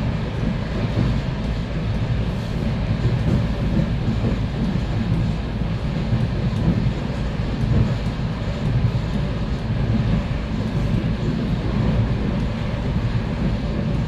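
ET2M electric multiple unit running along the line, a steady low rumble of wheels and running gear.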